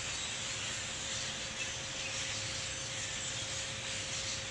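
Dense, steady chatter of a large flock of migrating birds resting in backyard trees, heard as an even hiss of many distant calls over a low background hum.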